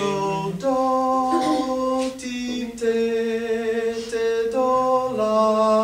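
A class singing a melody line a cappella in solfège syllables, unaccompanied, in slow held notes that step to a new pitch every second or so.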